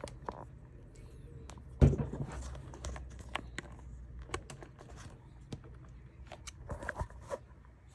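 Scattered clicks and rustling of a USB cable being handled and plugged into the newly replaced charging port of a jump-starter battery pack, with one louder knock about two seconds in.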